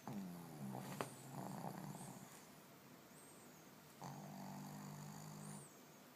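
Boston terrier snoring in its sleep: a snore that falls in pitch with a sharp click about a second in, a breathy stretch, then a second steady low snore from about four seconds in.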